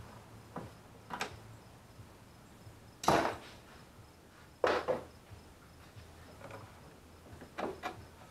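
Scattered knocks and clatters of hard objects being handled and set down, about seven in all, the loudest about three seconds in and again near five seconds.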